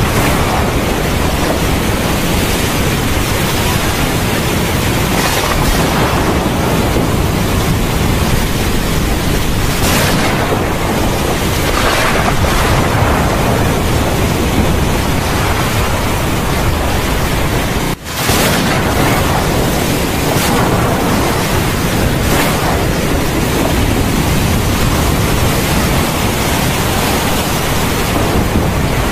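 Heavy, steady rain with occasional swells of thunder. The sound dips out for an instant about two-thirds of the way through.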